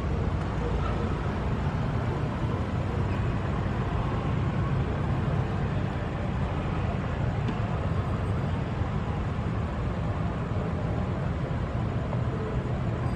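Steady low rumble of city street traffic, with motorcycle engines running among it.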